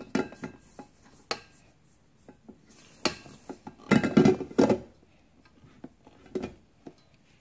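Spatula knocking and scraping against a stainless-steel stand-mixer bowl as flour is stirred by hand into creamed butter, in irregular clunks with the loudest cluster a little past the middle.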